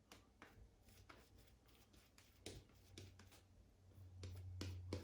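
Faint scratchy strokes of a shaving brush painting lather onto the face, with a low hum that grows louder over the last second or two.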